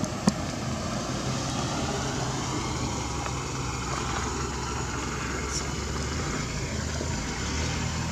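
An engine running steadily, a low even hum, with one sharp click shortly after the start.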